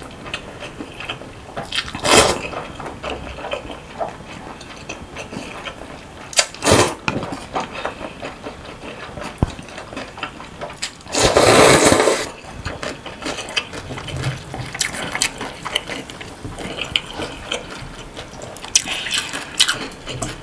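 Close-up slurping and chewing of naengmyeon cold noodles in broth: wet slurps, the loudest about two seconds in, near seven seconds and a longer one past the middle, with soft wet chewing clicks between them.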